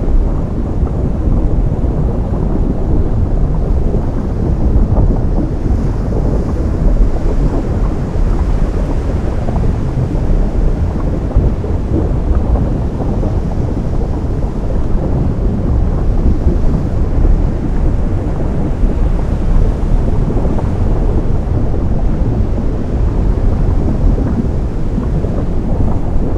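Ocean surf where the sea meets lava, heard as a steady low rumble with no single wave or crash standing out.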